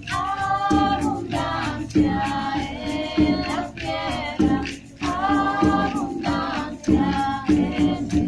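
Several women singing a repeating melody together, with a hand-held frame drum and a rattle keeping a steady beat.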